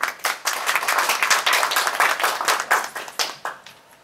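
A small group of people applauding, the clapping dense at first and dying away about three and a half seconds in.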